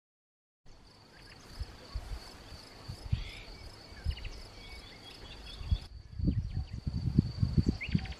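Crickets trilling steadily, starting abruptly just under a second in, with a few short bird chirps over them. Low thuds and rumble grow stronger in the second half.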